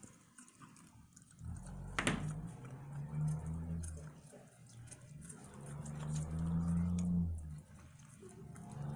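Turkeys pecking at a watermelon, with light wet clicks and one sharper click about two seconds in. Under them, a low steady hum comes and goes twice, lasting a couple of seconds each time.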